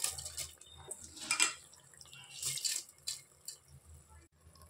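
Soaked, drained rice tipped into a pressure cooker onto wet tomato masala, in several short pours.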